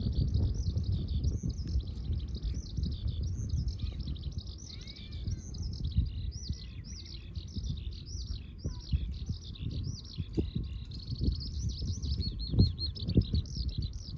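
A songbird singing a long, fast series of repeated rising-and-falling chirps, about two a second, over a low rumbling background with a few sharp pops near the end.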